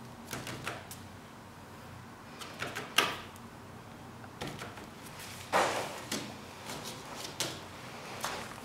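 Fingertips tapping and brushing across a large sheet of white paper: scattered light taps and scrapes, with a sharp tap about three seconds in and a longer swish of fingers sliding over the paper a little past halfway.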